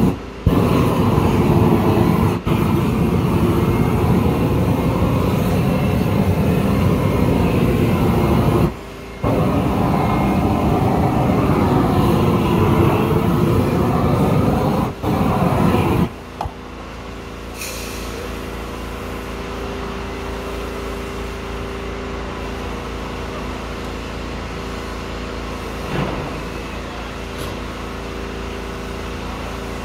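Propane roofing torch roaring, a loud even rush with several abrupt breaks. About sixteen seconds in it gives way to a quieter steady hum with a held tone.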